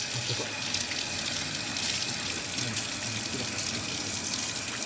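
Hot water running steadily from a swivel-spout tap into a stainless steel sink, splashing over a hand held under the stream.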